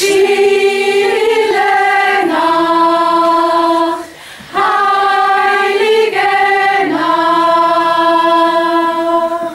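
Mixed choir singing unaccompanied in harmony, holding long chords that change every second or two. There are two phrases with a short breath about four seconds in, and the singing stops near the end.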